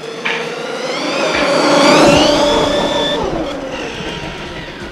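1/8-scale RC monster truck with a Surpass Hobby 4076 2200 kV brushless motor on a 4S battery making a full-speed pass. The motor's whine, with drivetrain and tyre noise, rises in pitch as it accelerates, is loudest about two seconds in, then fades away.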